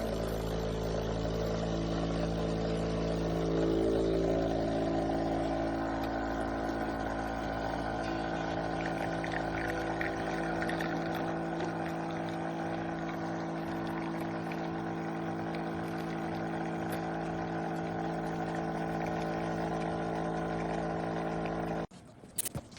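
An electric kitchen appliance humming steadily with an even buzz, which cuts off abruptly about a second before the end.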